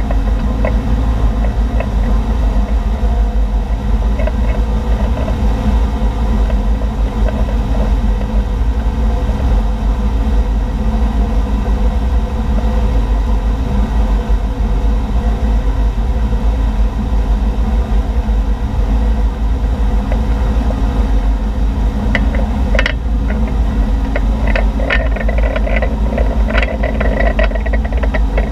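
Tow boat's engine running steadily at speed, with the rush of water churning in its wake. A run of short crackles joins in over the last several seconds.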